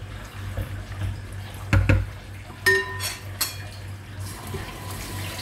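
Metal utensil knocking and clinking against a cooking pot: two dull knocks about two seconds in, then two short ringing clinks, over a low steady hum.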